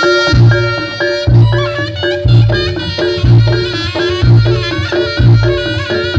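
Reog gamelan music played loud through a large sound system. A nasal, reedy slompret melody runs over ringing kenong-type gongs, with a heavy bass beat about once a second.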